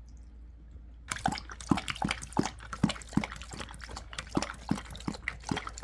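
A cat lapping water, a quick wet lap about three times a second, starting about a second in.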